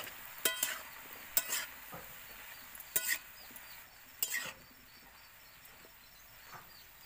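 Spatula stirring and scraping sabji in a steel kadhai, with the vegetables sizzling. There are several sharp scrapes and knocks against the pan in the first four and a half seconds, then only the quieter sizzle.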